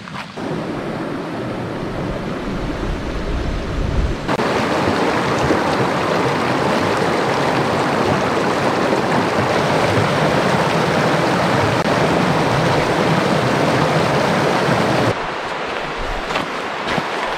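Shallow mountain creek running over rocks: a steady rush of water that starts abruptly about four seconds in and stops abruptly near the end. Before it, wind buffets the microphone.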